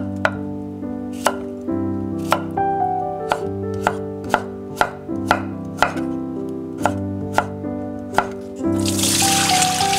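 Chef's knife chopping a cucumber on a wooden cutting board: sharp knocks roughly one or two a second, over background music.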